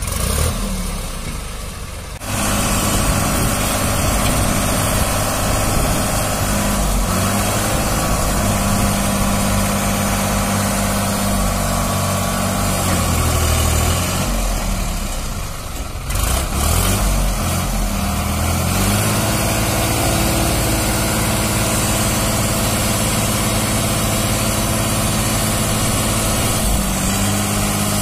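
New Holland 3600-2 tractor's three-cylinder diesel engine running while its hydraulics tip up a trailer loaded with sand. The engine note shifts in pitch a few times, most clearly around the middle.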